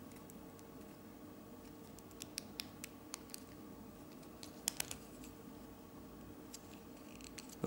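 A few faint plastic clicks of Lego Technic parts being handled and fitted together: a scatter of clicks about two to three seconds in and a couple more near five seconds.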